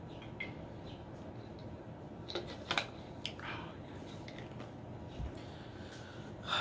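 A few light clicks and knocks from a plastic drinking bottle being drunk from and handled, over a low steady hum.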